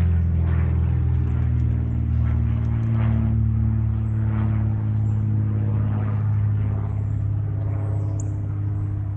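A steady, low engine drone from a passing vehicle or aircraft, with faint high bird chirps near the end.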